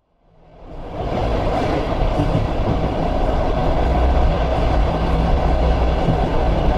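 A steady, loud rumbling noise that fades in from silence over about the first second and then holds, with a heavy deep rumble underneath.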